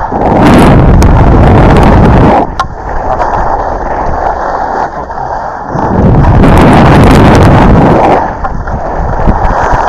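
Wind buffeting the camera's microphone as a skier descends the slope, a loud low rumble that surges twice, about half a second in and again about six seconds in, with a weaker rushing noise in between.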